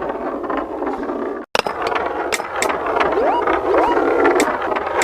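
Marbles rolling and clattering along a marble run track, with a steady rolling rattle and many sharp clicks as the balls knock against the track and each other. The sound cuts out briefly about a second and a half in, and two short rising tones come a little past halfway.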